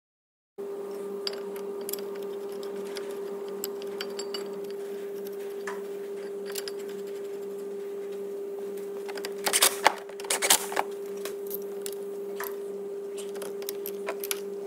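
Steady electrical hum in a workshop with scattered light metallic clicks, and a short cluster of louder clicks and metal clatter about ten seconds in as tools are worked at the freshly fitted brake caliper carrier.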